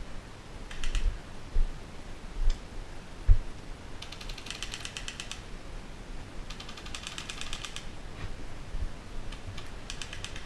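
Airsoft electric gun firing full-auto bursts: rapid, evenly spaced mechanical clicking. Two longer bursts of about a second and a half come in the middle, with short bursts near the start and the end. A few dull thumps come in the first few seconds.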